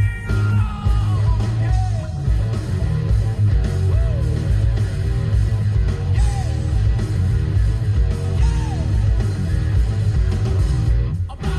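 Rock song with singing, guitar and a heavy bass beat, played back through a speaker hooked up by an aux cord. The playback briefly drops out just before the end.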